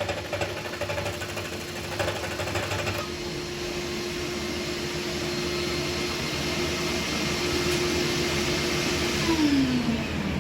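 Scroll saw running and cutting through a wooden block, a steady mechanical hum whose pitch falls about nine seconds in as the saw slows.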